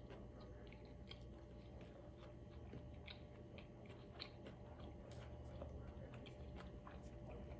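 Faint, close-up chewing of a crunchy fish sandwich, with irregular small crunching clicks as it is chewed.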